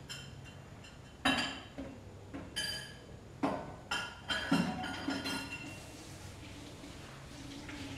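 Dishes and kitchenware clinking and clattering on a counter: a run of about eight sharp clinks and knocks, several with a short metallic or glassy ring, between about one and six seconds in.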